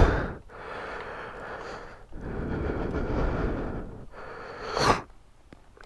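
A man's heavy breathing close to the microphone: two long breaths of about two seconds each, then a short sharp one near the end.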